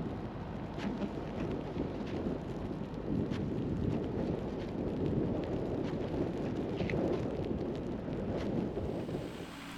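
Strong blizzard wind buffeting the microphone in an uneven, gusty rumble, with a few faint ticks.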